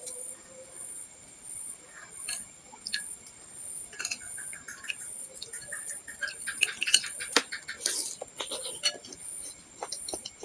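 Close-up eating sounds from a bowl of bakso meatball soup: scattered clicks of a spoon against the bowl, with wet chewing and slurping noises that grow busier about six seconds in.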